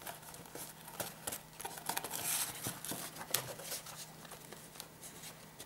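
Paper and cardboard being handled: a scatter of light taps and clicks, with a longer rustle of paper about two seconds in.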